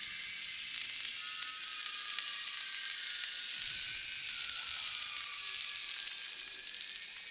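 Steady, dense chorus of night insects, a continuous high-pitched chirring hiss.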